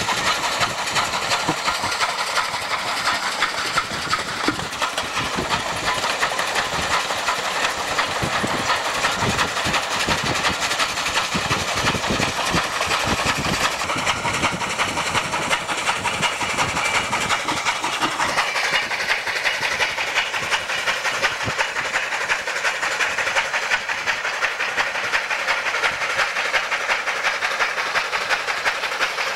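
Two Durango & Silverton K-28 narrow-gauge steam locomotives, Nos. 476 and 473, passing close by at low speed: a steady hiss of escaping steam over a continuous clatter of rods, wheels and rail joints.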